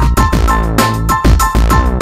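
Electronic background music with a steady beat and heavy bass.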